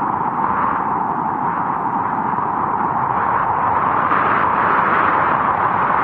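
Winter wind blowing hard and steadily, swelling slightly about four seconds in.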